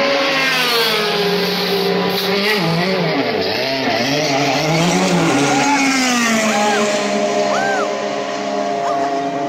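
Mercedes DTM race car's V8 engine revving as the car pulls away from its pit box, its pitch falling and rising in several swoops, with other engine notes running underneath.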